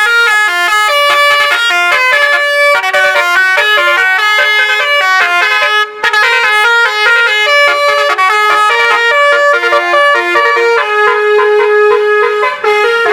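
Indonesian 'telolet' bus horn, a multi-tone air horn, playing a fast tune of stepped notes. It breaks off briefly about six seconds in and again near the end.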